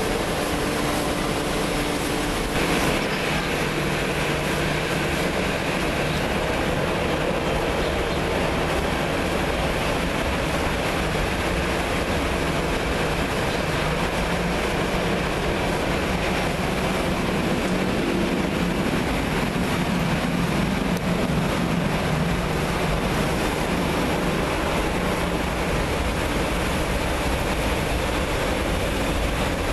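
Steady rumble of a regional jet's engines on a wet runway, mixed with heavy rain; it gets a little louder about three seconds in.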